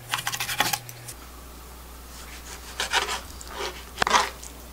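Kitchen knife slicing raw chicken breast into strips on a plastic cutting board: a quick run of cutting strokes against the board in the first second. Later come a few softer rubbing sounds as the cut meat is pushed and pressed on the board.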